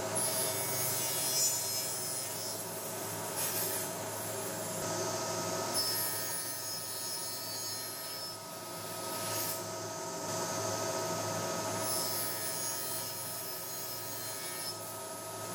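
Powermatic table saw running steadily, its blade cutting a board held upright in several passes, each cut a burst of hissing saw noise over the motor's steady hum.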